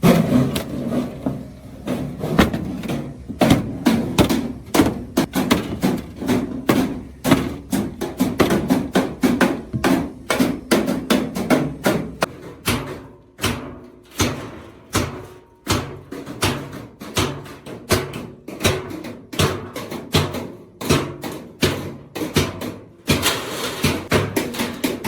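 Hammer blows on sheet steel, struck over and over at an uneven pace of a few a second, with a short ring after each blow, as drum metal is worked into shape.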